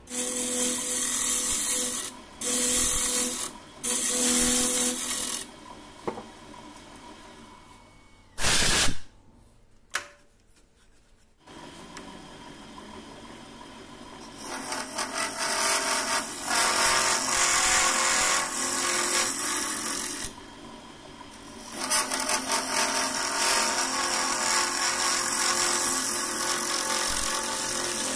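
A wood lathe running while a turning tool cuts and scrapes the inside of a hard mastic wood goblet, a hiss of cutting in several long passes over the steady hum of the lathe. The cutting stops for several seconds in the middle, with one short loud burst, then picks up again for two longer passes.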